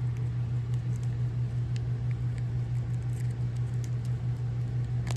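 Faint small clicks and ticks from tiny model-locomotive parts being handled, over a steady low hum.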